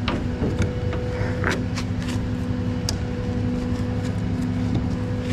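Peterbilt rollback tow truck's diesel engine idling with a steady hum. A few sharp clicks and scuffs come from footsteps and strap handling on the steel diamond-plate bed.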